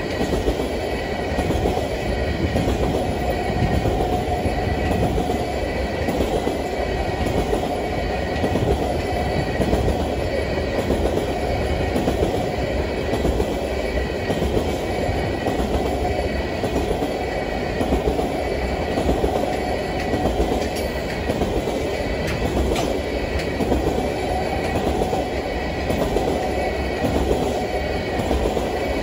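Tank cars of a freight oil train rolling past, steel wheels rumbling and clacking steadily over the rails.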